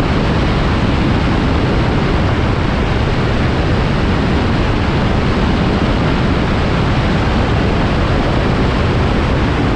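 Steady, loud rush of wind and engine noise aboard a microlight aircraft in flight.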